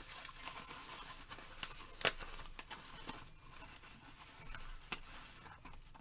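Clear plastic packaging sleeve crinkling and rustling as a TV remote is slid out of it by hand, with a few sharp crackles, the loudest about two seconds in.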